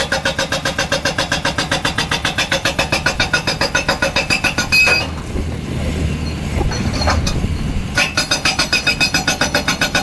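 Hydraulic rock breaker on a Caterpillar excavator hammering rock in a fast, even rhythm of about seven blows a second. The hammering stops about five seconds in, leaving a few seconds of lower machine rumble, then starts again near the end.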